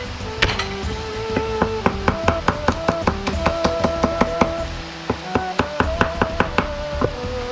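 Chinese cleaver mincing garlic on a plastic cutting board: rapid chopping strokes about five a second, with a short pause partway through. Background music plays throughout.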